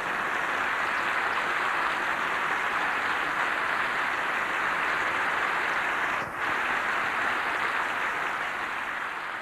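Concert audience applauding steadily. There is a brief dip about six seconds in, and the applause fades away near the end.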